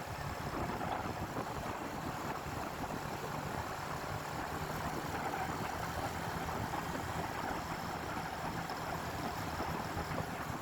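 A vehicle engine running steadily under a wash of wind noise on the microphone, with no horn sounding.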